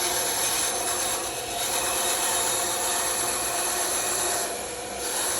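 Bandsaw running and cutting through wood: a steady whirring hiss of the blade, easing off briefly about a second and a half in and again near the end.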